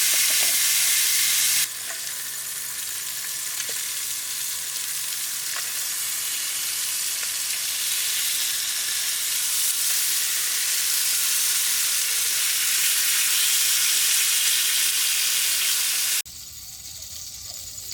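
Steady sizzling hiss of food frying in a pan. It drops abruptly about a second and a half in, then again near the end.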